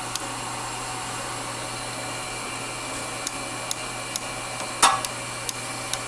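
ENCO 9 x 20 bench lathe running in reverse, its motor and belt drive humming steadily, with scattered light clicks and one louder clack nearly five seconds in. The clicking is heard only in reverse, and the owner thinks it has something to do with the brass tensioner inside.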